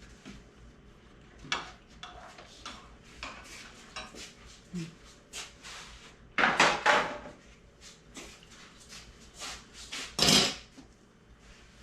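Kitchen dishes and utensils being handled: a run of light clinks and knocks, with a louder clatter about six and a half seconds in and another about ten seconds in.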